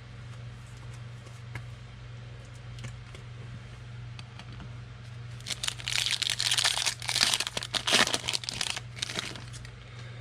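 Foil wrapper of a 2020 Score football card pack being torn open and crinkled, starting about halfway through and lasting about four seconds, with a few light card handling clicks before it and a steady low hum underneath.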